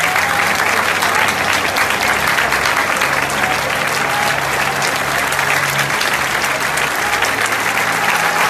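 Large stadium crowd of football supporters applauding: many hands clapping in a dense, steady mass.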